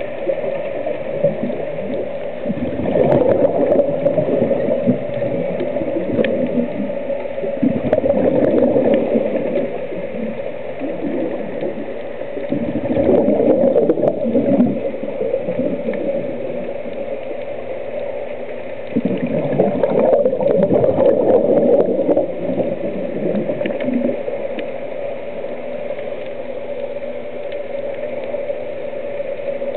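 A scuba diver's exhaled bubbles gurgling out of the regulator, heard underwater: four surges of bubbling several seconds apart, with a steady hum underneath.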